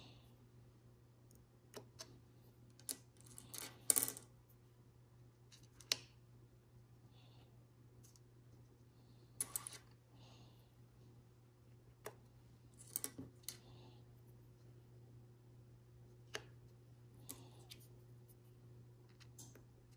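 Small glass mosaic tiles clicking and clinking as they are picked up and set down one at a time in a coaster tray: scattered light taps, a few in quick clusters, over a faint steady low hum.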